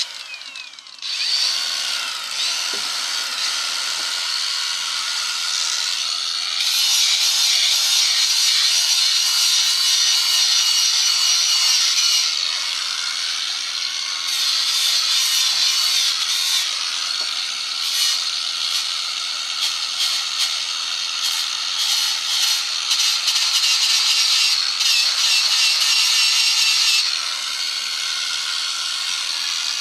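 Electric power tool running continuously while shaping wood, a steady motor hum under a hissing cutting noise that grows louder in several stretches as the tool bears into the wood.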